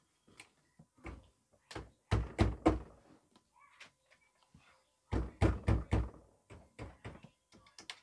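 Wooden desk drawers knocking and thudding as they are worked while adhesive childproof locks are fitted: a quick run of three knocks about two seconds in, four more about five seconds in, and lighter taps between.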